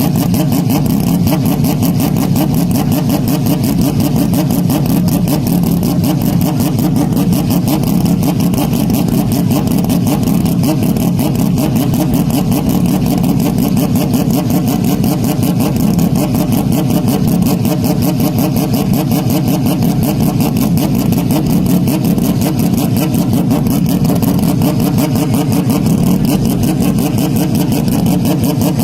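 Motocross motorcycle engines running on track: a loud, steady, dense engine noise with rapid pulsing and no single clear rev-up or pass-by.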